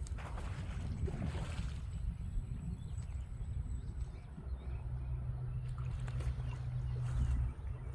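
Low outdoor rumble, like wind on the microphone, with a steady low hum coming in about halfway through and stopping near the end.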